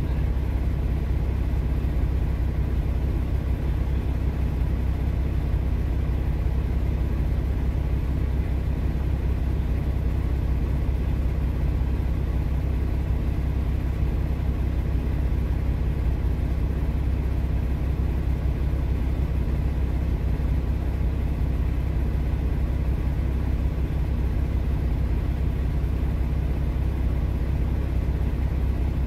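Semi truck's diesel engine idling, a steady low hum heard inside the cab while the truck stands still.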